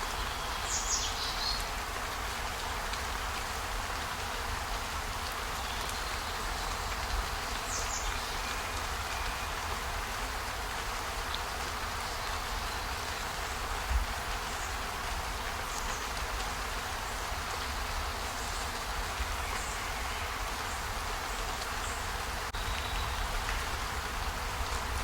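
Steady, even rain-like hiss of a relaxation ambience track, with a few short high chirps about a second in and about eight seconds in.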